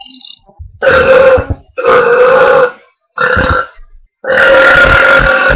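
Four loud belches from girls in quick succession, the last one the longest.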